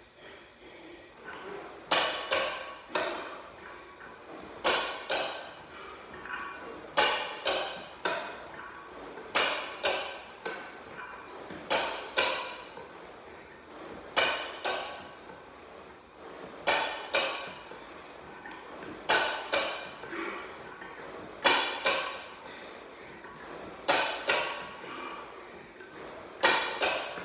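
Plate-loaded leg extension attachment clanking with each rep, about every two and a half seconds, often as a pair of metal clanks a moment apart, as the lever and its iron weight plates swing up and back down.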